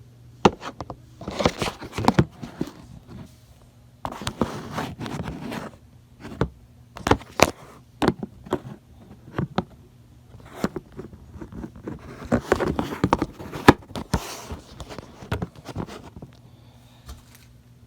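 Handling noise while the camera is repositioned: irregular clicks, knocks and rustling scrapes in clusters, with short pauses between them.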